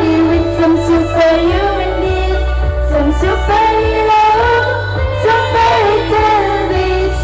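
Girls' school choir singing into microphones, amplified through a PA, with a steady low bass accompaniment underneath.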